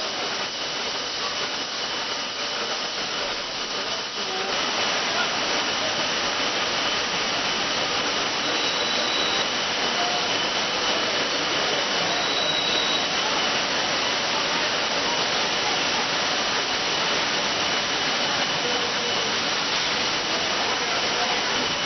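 Beverage can line running: steady machine noise of cans moving along a conveyor and through a rotary filler, with a thin steady whine in it. It gets louder about four seconds in.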